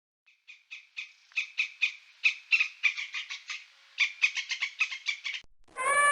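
An animal's rapid, clicking call: a run of short sharp pulses, about five a second, with a short break about four seconds in before a second run. Just before the end a louder, steady sound with a clear pitch begins.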